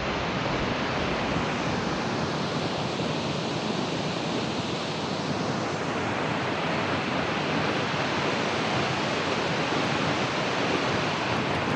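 Steady, unbroken rushing of Howick Falls, a tall waterfall, heard from the viewpoint.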